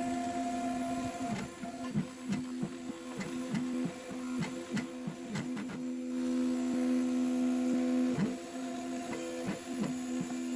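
CNC router running: a steady motor whine whose upper tones shift as the machine moves, with many short clicks.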